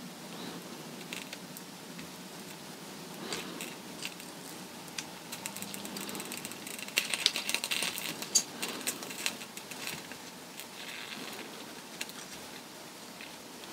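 Soldering iron melting flux and solder on a wire connector: fast, irregular crackling and tiny ticks, densest about seven to nine seconds in, over a low steady hum.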